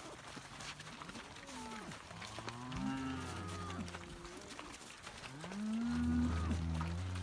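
Cattle mooing: two long moos, one about a third of the way in and a louder one near the end.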